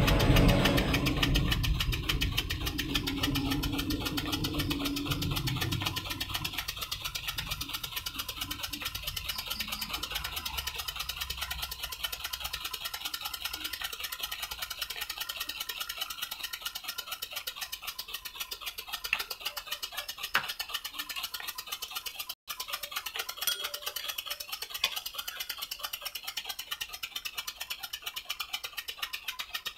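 Small homemade steam engine running steadily at speed: a rapid, even clatter from its piston and crank. A low rumble fades out over the first few seconds, and a few sharper clicks stand out later on.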